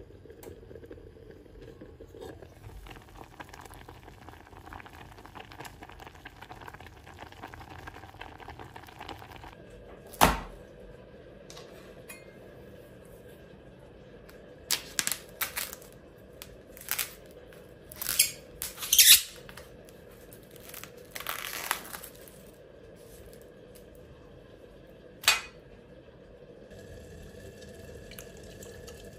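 Knife piercing and tearing the plastic cling film on a supermarket tray of chicken, with loud crinkling and crackling in several clusters over about seven seconds. A single sharp knock comes before it and another after it, over a steady low hum.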